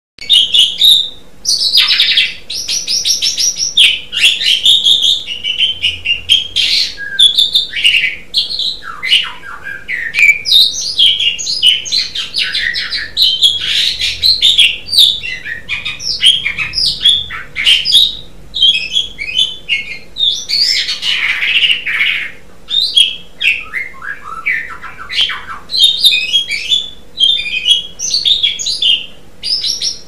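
Asian pied starling (jalak suren) singing energetically and without pause: a varied stream of whistles, chattering runs and harsh notes, with short bursts of rapid clicking.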